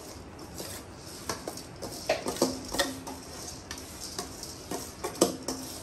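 Metal spoon scraping and tapping rice out of a steel bowl into a large steel pot of simmering yakhni stock: a run of irregular clinks and knocks, two of them ringing briefly, about two seconds in and again near the end.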